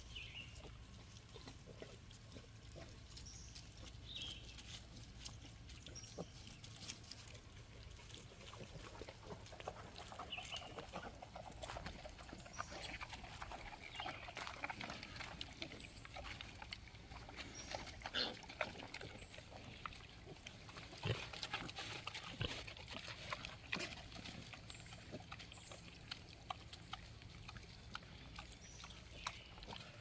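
Pigs, a sow and her piglets, rooting and snuffling in dry dirt and twigs while eating, with soft grunts and occasional short high piglet squeaks. Busiest in the middle.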